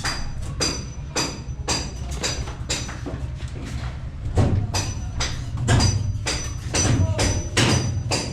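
A steady run of sharp strikes with a bright metallic ring, about two a second, over a steady low hum.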